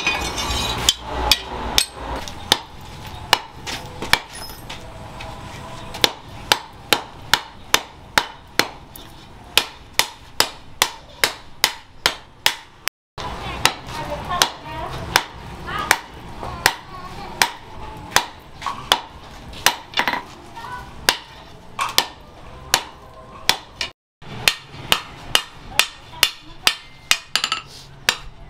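Hand hammer striking hot leaf-spring steel on a steel anvil: a steady run of sharp metal-on-metal blows, about two a second, broken twice by short silent gaps.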